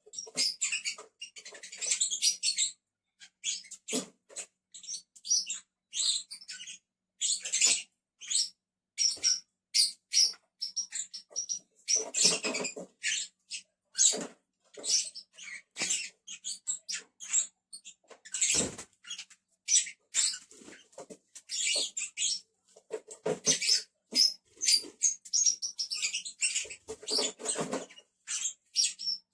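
Pet lovebirds chattering: a near-constant stream of rapid, shrill squeaks and chirps, with one sharp knock about two-thirds of the way through.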